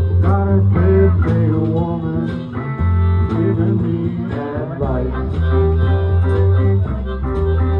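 Live blues-style music: plucked guitar over a strong, steady bass line, with a voice singing along.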